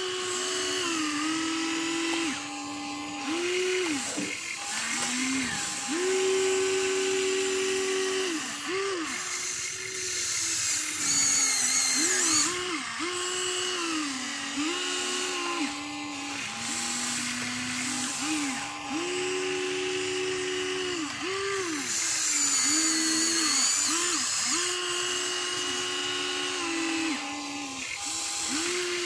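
Huina RC excavator's small electric motors whining as the boom, arm, bucket and turntable work in turn. The whine starts, stops and shifts pitch every second or so as one motion gives way to the next.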